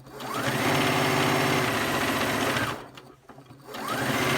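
Singer 6600C heavy duty sewing machine stitching at high speed, its motor whining up to speed, running steadily for nearly three seconds, stopping briefly, then speeding up again near the end.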